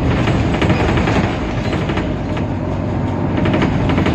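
Temsa Avenue LF city bus with a DAF PR 228 diesel engine running: a steady low rumble with an irregular rattling clatter over it.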